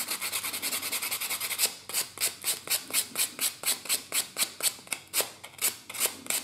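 Sanding block rubbed by hand along the edge of a small laser-cut wooden part, in quick back-and-forth strokes: nearly continuous for the first second and a half, then about four strokes a second. The sanding takes the dark laser-cut residue off an edge that is to be glued, because that residue doesn't hold glue well.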